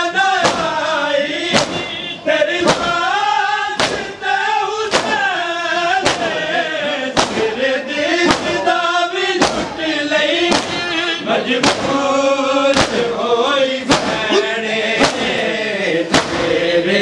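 A group of male mourners chanting a nauha, a Muharram lament, in chorus, while hands slap their chests in unison on a steady beat (matam).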